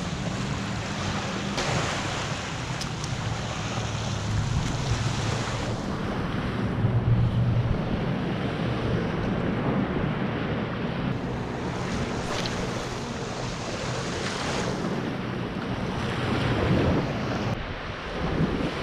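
Sea surf washing onto a sandy beach, a steady rushing noise, with wind rumbling on the microphone.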